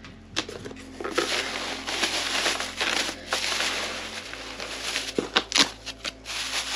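Clear plastic wrap crinkling and crackling as hands grip it and lift a wrapped box out of its foam packing.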